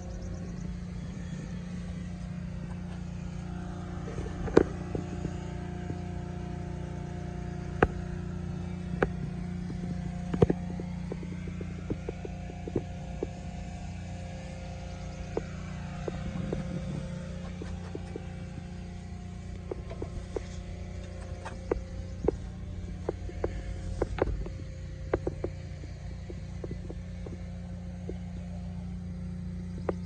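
New Holland 555E backhoe loader's diesel engine idling steadily with a low, even hum. Sharp clicks and knocks come and go over it, the loudest a few seconds in and around ten seconds in, with a cluster of them later on.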